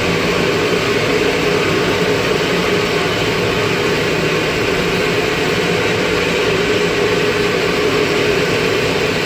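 Steady, loud engine drone heard from the cab of an airport pushback tug as it pushes back a Boeing 737-800, mixed with jet engine noise from the airliner.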